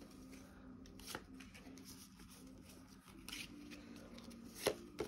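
Pokémon trading cards being flipped through by hand: quiet rustling with a few sharp card flicks, once about a second in and twice near the end.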